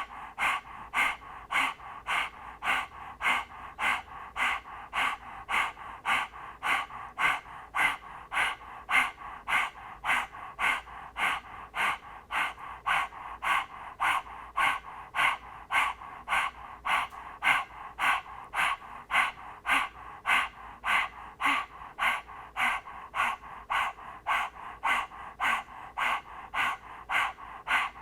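A person panting rapidly and rhythmically through the open mouth with the tongue out, about two short breaths a second, in the yoga breathing exercise called puppy dog breath.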